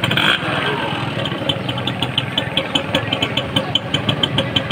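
A 2005-model Yamaha motorcycle engine idling steadily, with a regular light ticking about six times a second.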